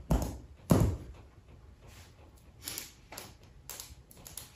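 Two short thumps in the first second, then faint, irregular scratching of pens writing on paper.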